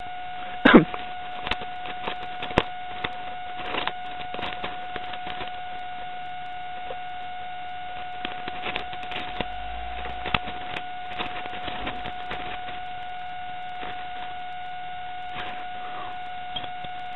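Fast-forwarded sound of a package being cut and opened: a steady high-pitched whine with scattered quick clicks and rustles over it.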